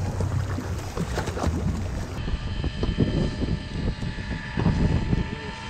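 Wind buffeting the microphone and water splashing against a boat hull, with a few knocks. About two seconds in, this gives way to a steady, multi-toned motor whine from an electric deep-drop fishing reel running.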